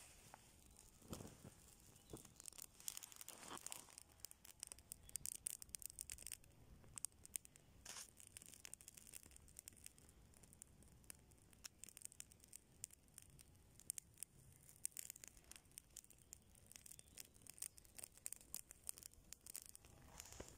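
Small fire of resin-soaked pine fatwood shavings and dry twigs crackling faintly, with many short, irregular pops and ticks. A few duller rustles come in the first few seconds.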